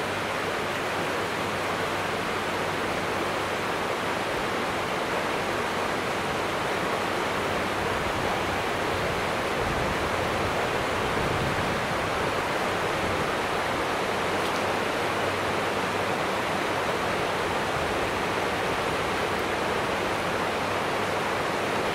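A river running fast over shallow rapids: a steady, even rush of water.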